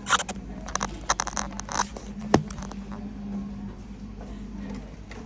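Plastic clicks and scraping as the printer's two orange latches are pressed and the part behind them is worked loose, with one sharp click a little over two seconds in. A steady low hum runs underneath and is left alone in the second half.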